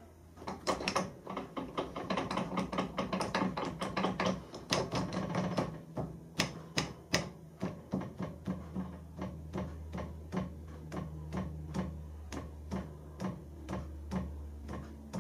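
Milling machine table being wound up by its hand crank: a quick run of mechanical clicks for the first several seconds, then slower single clicks about two a second as the table is inched onto its 10 mm mark. A steady low hum runs underneath.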